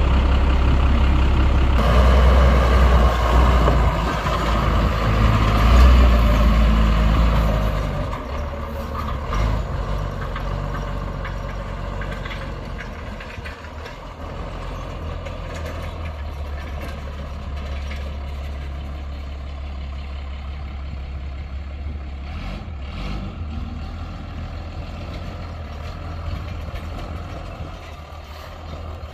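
A 1993 Ford F700 truck's six-cylinder diesel engine running, louder for the first eight seconds or so, then settling to a steady, quieter run.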